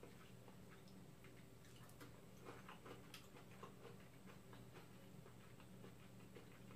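Near silence: room tone with a low steady hum and faint, irregular small clicks, a few of them clustered about two to three seconds in.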